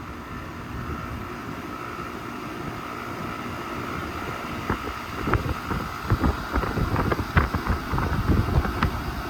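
A 1999 3.5-ton R-22 central air conditioner condensing unit running steadily, its fan blowing and the motor giving a steady hum. From about five seconds in, irregular knocks and rustles come over it.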